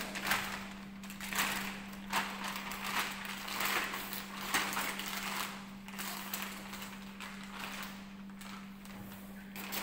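Clear plastic bag rustling and crinkling in irregular bursts as it is pulled off a new air rifle, over a steady low hum.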